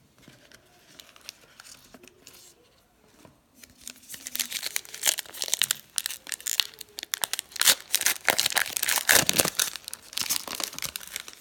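A baseball trading card pack wrapper being torn open and crinkled by hand. The dense crackling and tearing starts about four seconds in and goes on almost to the end.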